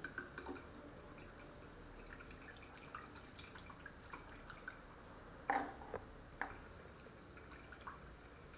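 Faint drips and small taps as water is added from a cup to the breading mixture, with a louder knock about five and a half seconds in and a smaller one near six and a half.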